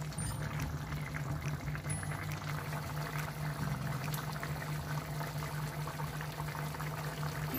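Spicy chicken broth bubbling as it simmers in an aluminium wok, a steady crackle of small pops over a constant low hum. The sauce is being cooked down to reduce.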